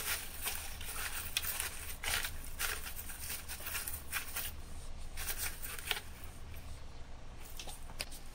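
Pumice stones in a mesh net bag crunching and rustling as a hand presses and spreads them over the bottom of a flower pot, with irregular light clicks and scrapes.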